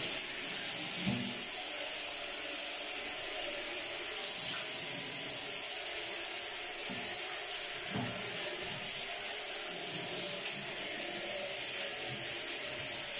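Water running from a handheld shower head into a bathtub as the tub is rinsed down after scrubbing, a steady spray with a couple of soft knocks.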